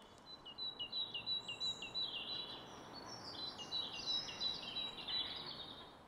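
Great tit singing: a simple two-note phrase, high-pitched, repeated over and over in the 'teacher, teacher' rhythm, over a steady background hiss.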